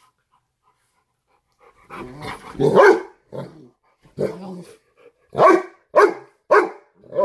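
Cane Corso dogs play-fighting, barking: silent at first, then from about two seconds in a run of about seven barks, the first one drawn out.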